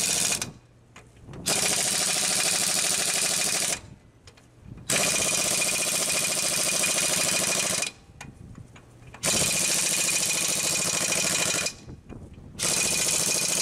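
Impact wrench hammering on a tractor rear wheel's lug nuts in repeated bursts of two to three seconds, with about a second's pause between bursts.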